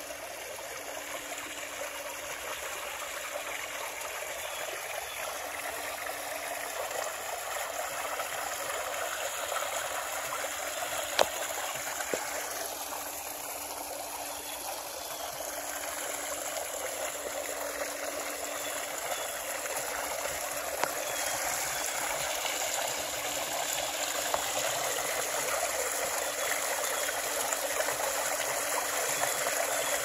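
Rock waterfall pouring recirculated pool water off stacked lime rock boulders and splashing into the pool surface: a steady rush of falling and splashing water that slowly grows louder, with one sharp click about eleven seconds in.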